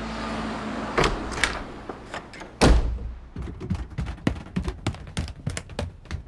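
A door shutting with a heavy thud about two and a half seconds in, followed by a quick run of light knocks and clicks.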